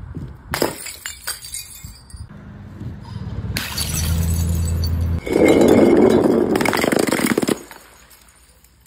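Glass bottles smashing on concrete, with glass clinking and scattering. A few sharp smashes come first, then a long, loud shattering crash that cuts off abruptly near the end.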